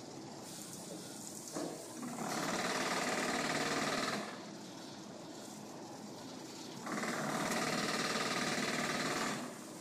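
Cowen honey extraction line machinery running steadily, with two loud, rough bursts of machine noise about two seconds each, the first a couple of seconds in and the second about seven seconds in.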